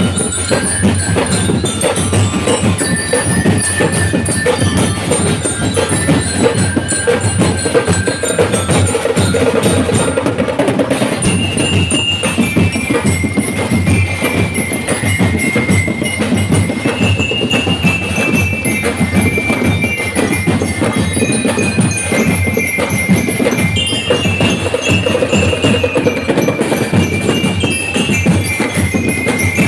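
Street percussion band playing for a sadsad street dance: many drums beating a dense, steady fast rhythm, loud and continuous, with a high melody stepping over it from about the middle on.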